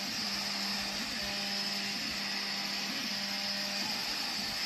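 Vzbot CoreXY 3D printer printing, with a steady fan whir and the stepper motors' low tone rising and falling about once a second as the print head travels round the box's walls.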